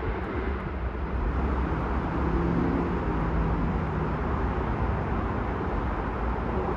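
Steady low rumble and hiss of a distant approaching train mixed with road traffic noise, with no horn or bell.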